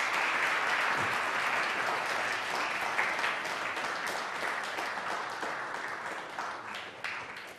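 Audience applauding, strongest in the first second and slowly thinning out.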